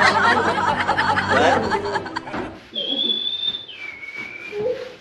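Young men laughing and chuckling, then about halfway through a whistle of two held notes, a high one for about a second and then a lower one.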